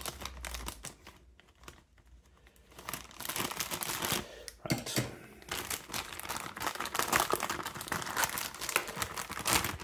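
Thin plastic packaging crinkling and tearing as it is opened by hand, fainter for the first few seconds, then a dense, continuous crackle from about three seconds in.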